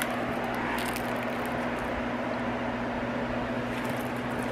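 Steady low machine hum with a constant tone, like a fan or air conditioner running in a small room. A few faint rustles of handling about a second in.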